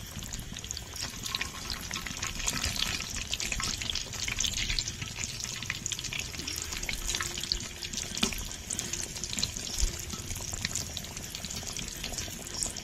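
Coated chicken cutlets deep-frying in hot oil in a kadai: a steady crackling sizzle with many small pops.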